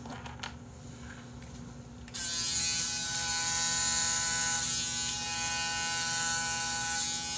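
Braun Series 9 electric foil shaver switched on about two seconds in, then buzzing steadily as it is run over the chin and jaw.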